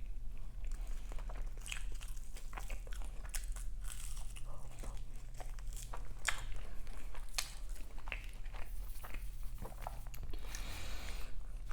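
Close-miked chewing of a crumbly, flaky meat-pie pastry: many small, crisp crackling crunches at an irregular pace, over a low steady hum.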